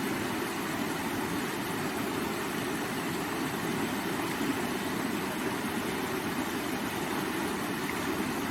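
River water flowing and rushing, a steady low rushing noise with no change throughout.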